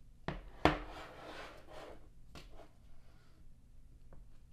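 A 15-inch MacBook Air's aluminium body set down on a wooden desk: two knocks less than half a second apart, the second the louder, then about a second of rubbing as it slides on the wood, and a few light taps later as hands square it up.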